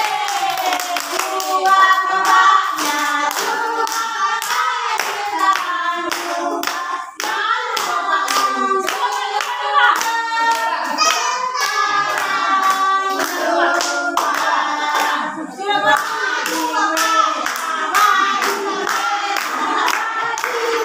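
Several people singing together while clapping their hands in a steady rhythm to keep the beat.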